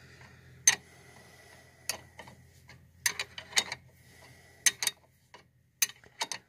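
Sharp metallic clicks and taps, some in quick pairs and spaced irregularly, as a wrench works the bolt of a new front brake caliper.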